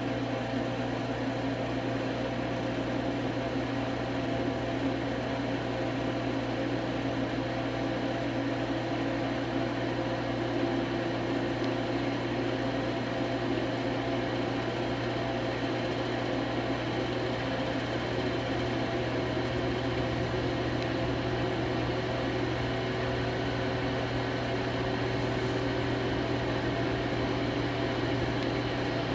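Washing machine drum spinning at maximum speed: a steady mechanical hum with a strong low drone and several held tones above it.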